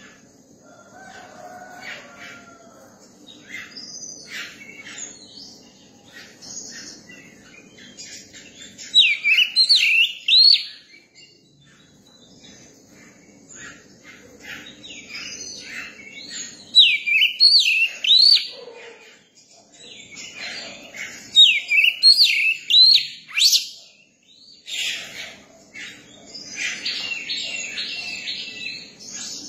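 Young oriental magpie-robin singing: three loud phrases of swooping whistled notes, about nine, seventeen and twenty-one seconds in, between softer chattering calls, with a quick run of repeated notes near the end. A faint steady high tone runs behind.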